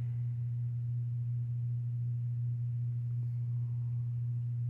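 A steady low electrical hum: one unchanging low tone with a fainter one an octave above it.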